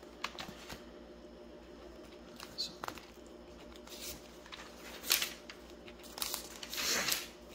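Thin Bible pages being leafed through by hand: a series of short papery rustles and flicks, about eight in all, with the longest and loudest near the end.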